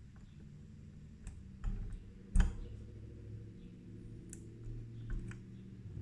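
Irregular small metallic clicks and scrapes of a bent paperclip being worked inside an RV door-latch lock cylinder to push down its last wafer and release it, with one sharp click about two and a half seconds in standing out as the loudest.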